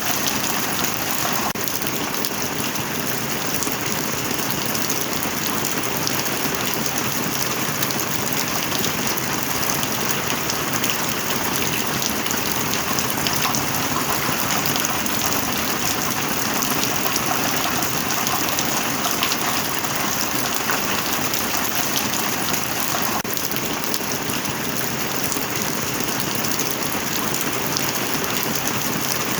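Heavy rain falling steadily, an even, unbroken patter of drops.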